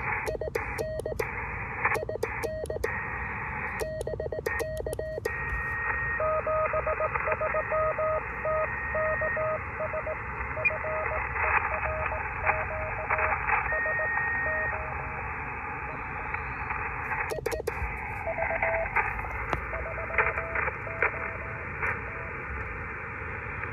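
SGC SG-2020 shortwave transceiver receiving Morse code: beeped dots and dashes in a steady tone over receiver hiss, with fainter signals at other pitches. In the first few seconds come bursts of clicking from the brass paddle key as the operator sends, and a few more clicks later on.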